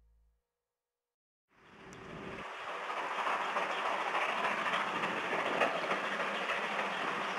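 Music fades out, then after a second of silence a train's running noise swells in from the distance and holds as it approaches on the line.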